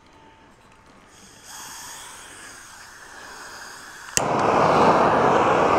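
Milkweed seed fluff in a bucket being set alight: a faint hiss, a sharp click about four seconds in, then a loud steady rush of flame as the fluff burns.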